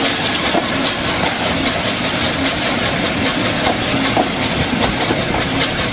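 Train running on the rails: a steady, loud rumble and hiss with light rattling.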